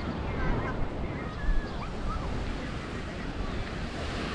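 Sea waves washing on a sandy beach, a steady rushing noise, with wind rumbling on the microphone that gusts strongest about a second and a half in.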